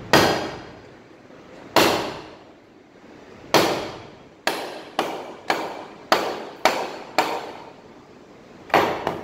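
Wooden mallet striking the back of a froe's blade to drive it down through a log and split it: a series of sharp knocks with a short ring after each. Three slow blows come first, then a quicker run of about two blows a second, then two more close together near the end.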